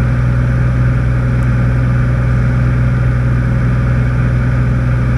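Cessna 206 Stationair's piston engine and propeller droning steadily in flight, heard inside the cabin.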